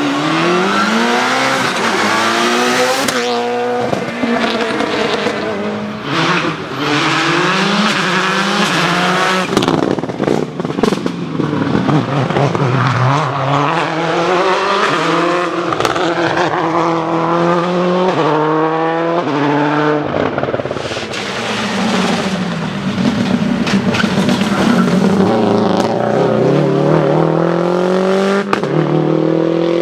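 Subaru Impreza rally cars with turbocharged flat-four engines accelerating hard on a rally stage. The engine note climbs steeply and drops at each gear change, again and again, with a few sharp cracks in between.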